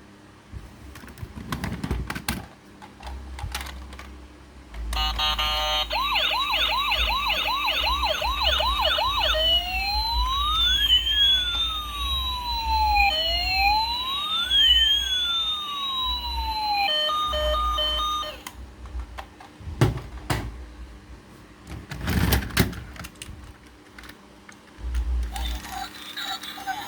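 Electronic toy siren: about three seconds of fast yelping sweeps, about three a second, then two slow rising-and-falling wails, ending in a few short steady beeps. A few knocks follow later.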